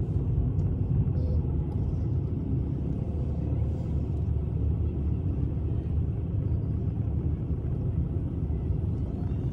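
Low, steady rumble of a car moving slowly in traffic, heard from inside the cabin.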